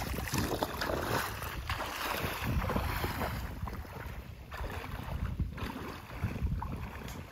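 Wading through a shallow stream: feet splashing and sloshing through the water in an uneven run of steps.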